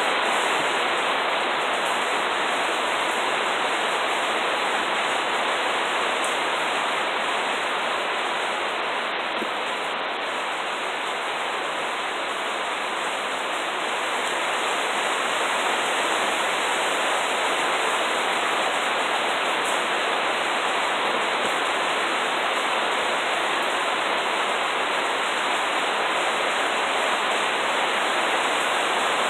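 Rain falling steadily, a constant even hiss that dips slightly about halfway through.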